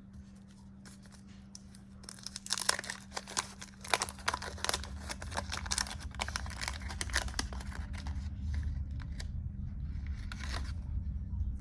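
Wax-paper wrapper of a 1989 Fleer baseball card pack being torn open and crinkled, starting about two seconds in, with a dense run of crackles. A steady low hum lies underneath.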